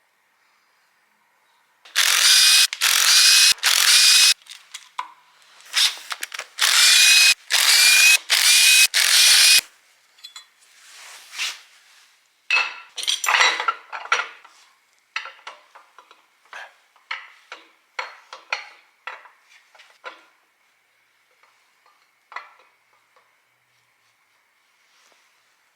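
A power tool running in a series of short bursts, with a steady whine in each, while bolts are worked on during an engine teardown. After that come scattered clicks and knocks of hand tools and parts.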